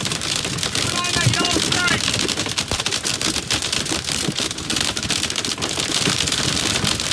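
Heavy rain and hail drumming on the roof and windshield of a moving vehicle: a dense, steady clatter of rapid impacts.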